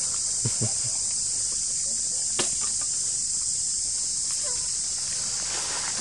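Steady high-pitched chorus of insects, with a few short clicks about half a second in and again near two and a half seconds.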